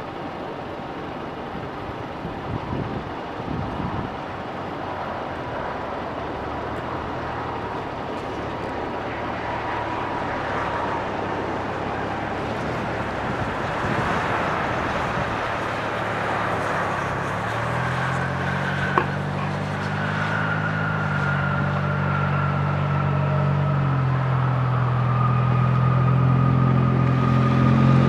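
Jet aircraft engines with a steady whine and low drone, slowly growing louder. A single sharp click sounds about two-thirds of the way through.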